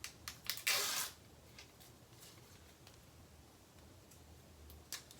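Handling noise: a few small clicks, then a short rustle or scrape about a second in, followed by a few more clicks near the end.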